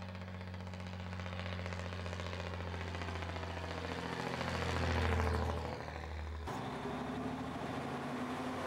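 1954 Freightliner tanker truck's engine pulling along the highway as the truck approaches and passes. It grows louder to a peak about five seconds in, with a falling pitch as it goes by. About six and a half seconds in it cuts abruptly to a steadier, more distant engine drone.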